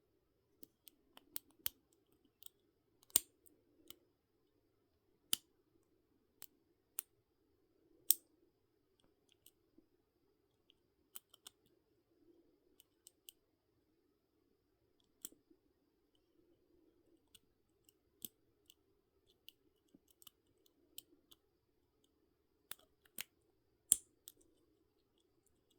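Irregular small, sharp metallic clicks and ticks of a lock pick and tension wrench working the pins inside a lock's keyway. Single clicks come a second or so apart, with a few louder ones, over a faint steady hum.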